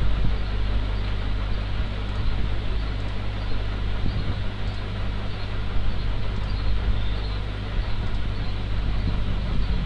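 Steady background noise: a constant low hum under an even hiss, with no speech.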